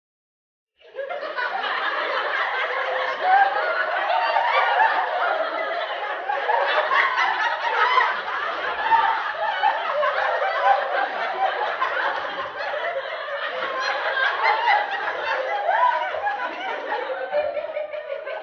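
A crowd laughing, many voices chuckling and laughing over one another. It starts abruptly out of silence about a second in and goes on steadily.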